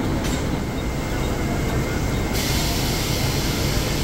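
Suburban local electric train running into a station platform, heard from inside the coach as a steady low rumble. A higher hiss comes in abruptly about halfway through.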